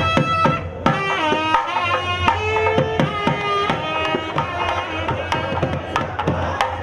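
Indian devotional music: a gliding instrumental melody over quick hand-drum strokes.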